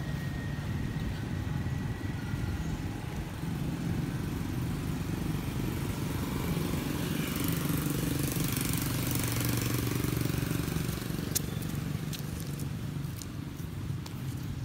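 Motorbike engine idling steadily with a low hum, with a few light sharp clicks in the last few seconds.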